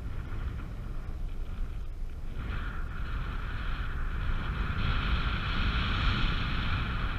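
Wind rushing over the microphone of a paraglider pilot's camera in flight, with a steady high electronic-sounding tone coming in about two and a half seconds in and growing louder toward the end.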